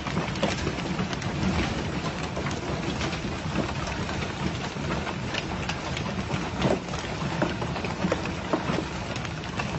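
Hailstorm: hailstones pelting down onto the ground and surrounding surfaces, a dense steady hiss broken by many sharp clicks and knocks of individual stones striking.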